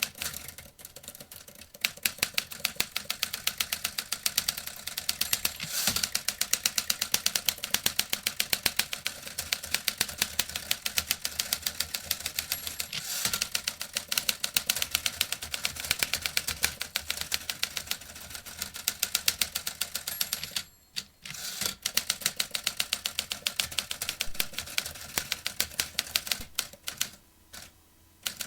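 Vintage typewriter being typed on quickly: a steady stream of key strikes that pauses briefly about three-quarters of the way through, then thins out to scattered strokes near the end.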